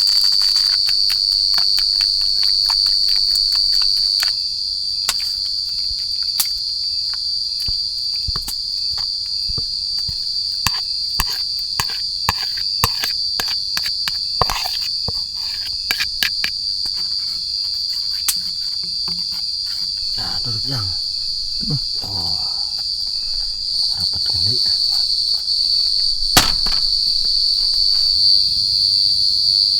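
Forest insects, crickets, keeping up a steady high-pitched chirring throughout, with scattered sharp clicks through the first half and one more click near the end.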